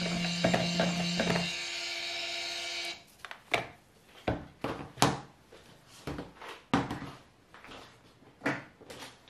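Stick blender running in a jug of cold process soap batter, blending the oils and lye, then switched off about three seconds in. After it stops, a scatter of light knocks and clicks from the blender being handled in the plastic jug.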